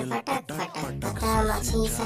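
Music from a Hindi-Bengali pop remix song playing, with a heavy bass beat under the melody.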